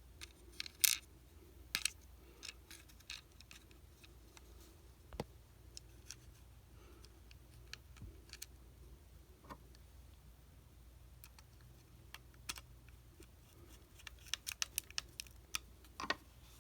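Scattered small clicks and taps from handling a plastic walkie-talkie and a screwdriver while its screws are put back in, with a quick run of clicks near the end.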